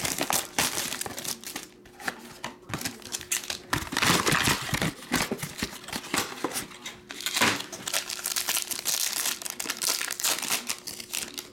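Plastic wrap and foil packaging on a sealed box of baseball cards crinkling and tearing as it is unwrapped by hand, in a quick run of irregular rustles and short rips.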